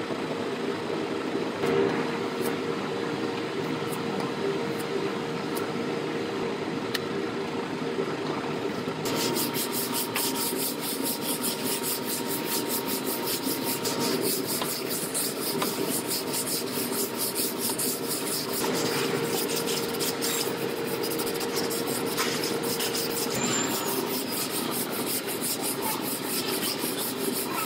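Body filler being worked by hand on a pickup's steel bed side: a plastic spreader scraping filler on a mixing board and the panel, then a sanding block rubbing it down, a steady scratchy rasp of quick back-and-forth strokes.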